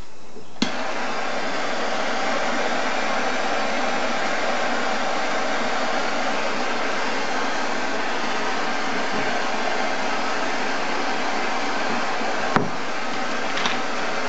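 MAPP-gas hand torch lit with a click about half a second in, then burning with a steady hiss as it heats a connecting rod for a press-fit wrist pin. A single sharp knock near the end.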